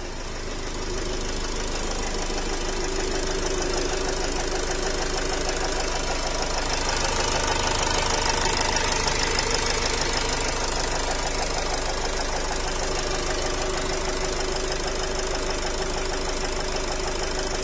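Nissan X-Trail 2.0 dCi four-cylinder turbodiesel engine idling steadily with its diesel clatter, just after a restart.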